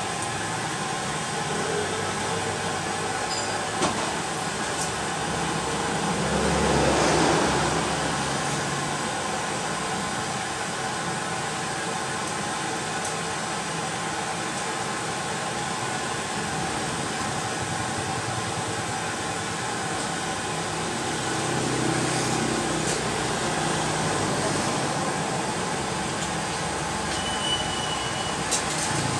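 Road traffic on a highway: motor vehicles passing, one rising and fading about seven seconds in and another, quieter, around twenty-two seconds, over a steady background rumble.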